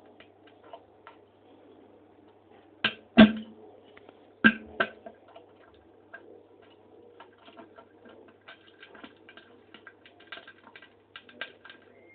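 Crackling and popping from a person's bowel movement: two loud pairs of sharp pops about three and four and a half seconds in, then a run of small quick crackles near the end.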